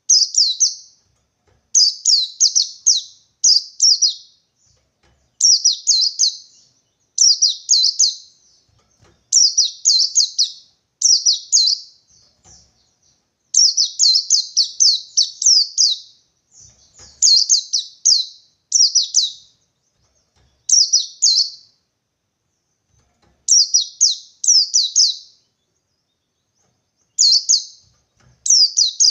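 White-eye (pleci) singing the 'ngalas 123' call: short, high bursts of two to four quick descending chirps, repeated every second or two with brief pauses. It is a rival-seeking challenge song, the kind used to provoke other white-eyes into singing.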